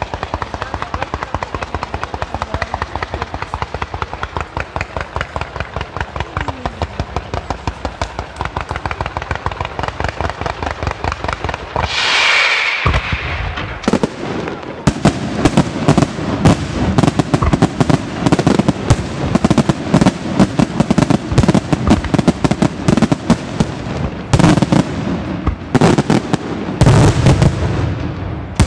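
Fireworks display. For about the first twelve seconds there is a dense, rapid string of pops as fans of comets are fired. A short hiss follows, and from about fourteen seconds there is a heavier barrage of loud bangs from bursting aerial shells.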